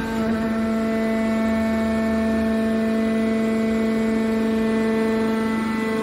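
Hydraulic power unit of a horizontal scrap steel baler running: a steady machine hum with a clear, unchanging pitch.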